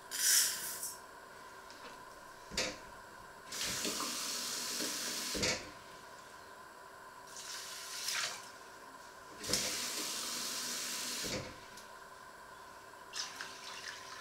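Kitchen tap turned on twice, each time running into a stainless-steel sink for about two seconds, with short splashes and knocks in between.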